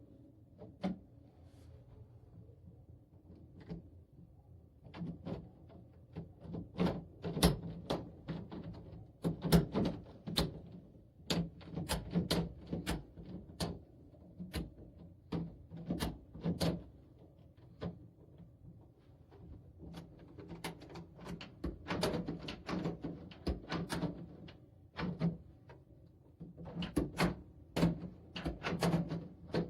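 Probrico privacy door lever being worked repeatedly, its latch mechanism clicking and clacking in clusters of sharp knocks with short pauses between.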